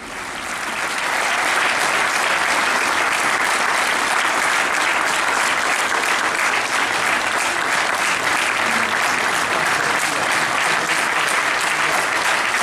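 Stadium crowd applauding: clapping that swells over the first second or two and then holds steady.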